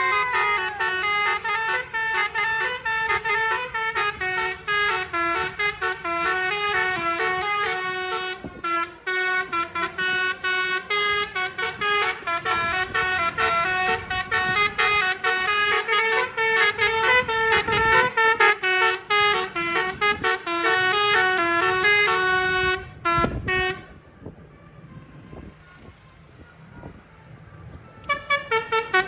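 A telolet basuri multi-tone bus horn playing a fast melody of short stepped notes, over and over. It breaks off about 23 seconds in and starts up again near the end.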